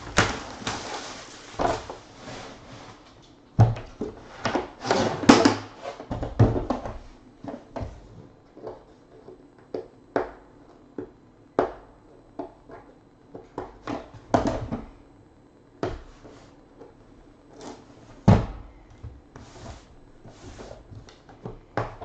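Plastic wrap and cardboard rustling and crackling as a sealed card box is opened, loudest a few seconds in. After that comes a string of separate clicks and knocks as a gold aluminium trading-card briefcase is handled and its latches are worked.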